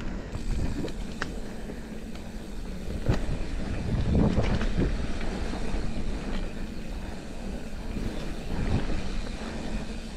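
Giant Trance full-suspension mountain bike descending a dirt trail: tyres rolling over dirt and leaf litter with a steady low rumble, and the bike knocking and rattling over bumps, loudest about four to five seconds in.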